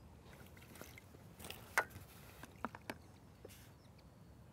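A few faint clicks and taps of fishing tackle being handled, the sharpest just under two seconds in, with smaller ones close together a second later, over a low steady background.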